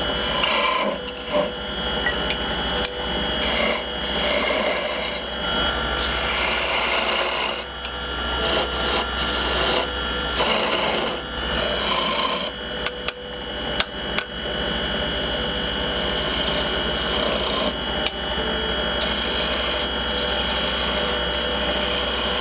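Wood lathe running with a steady motor hum while a tool scrapes and cuts the spinning wood in irregular strokes, with a few sharp clicks about halfway through.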